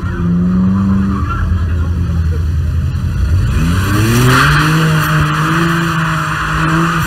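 BMW 3 Series coupe's engine revving up about three seconds in and holding high revs as the rear tyres spin and screech in a burnout.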